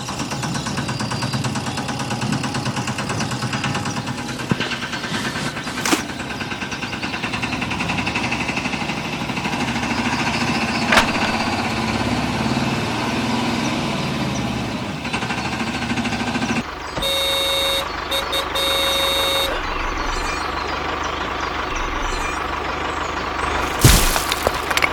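A vehicle engine running steadily, its sound changing about two-thirds of the way through. Two bursts of electronic reversing beeps follow, and a sharp bang comes near the end.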